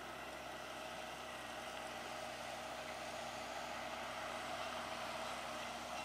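Case IH CVX175 tractor's engine running steadily under load as it pulls a six-furrow Kuhn plough, slowly growing a little louder.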